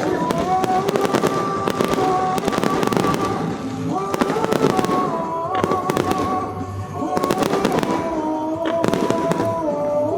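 Fireworks going off in rapid, repeated bangs and crackles over music with long held notes.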